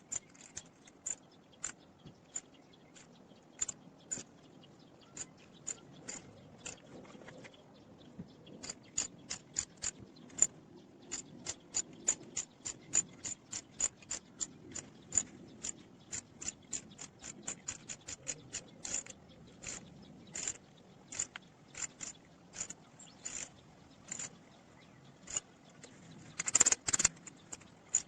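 Hand tools working a stripped thread during a Helicoil repair: a long run of short, sharp metallic clicks, irregular at a few a second, with a quick dense flurry near the end.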